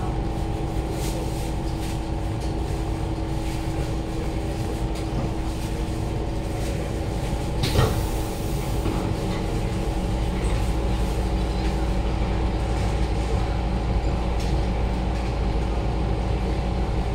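Steady hum of a Siemens C651 train car's onboard equipment at a station stop, with a single sharp knock and a brief hiss about eight seconds in as the doors are about to open.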